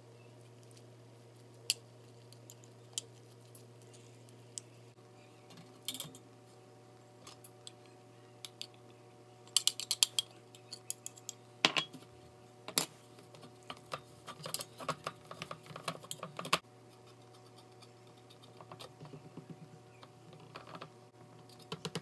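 A fork clicking and scraping against a glass bowl and then a metal springform pan as a crumbly almond-flour crust is mixed and pressed in. The taps come irregularly, thickest in the middle, with two sharp knocks about halfway through, over a steady low hum.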